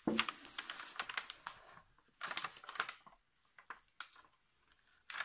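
Plastic protective sheet being peeled slowly off the adhesive surface of a diamond painting canvas, giving sticky crackles in several bursts.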